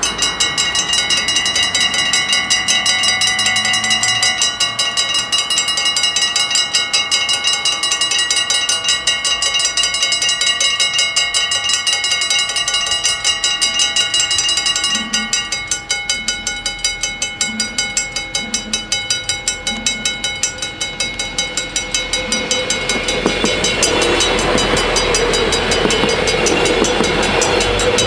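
Level crossing bells ringing rapidly while the half-barriers lower. About halfway through, the ringing thins and gets quieter. In the last several seconds an Arriva GTW diesel multiple unit approaches and runs across the crossing, its noise rising to a steady drone under the bells.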